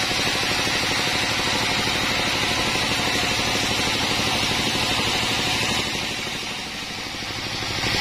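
Vertical band sawmill running and sawing lengthwise through a teak log: a steady machine drone with a fine, even pulse and a hiss of blade and wood. It dips in level about six seconds in, then comes back up.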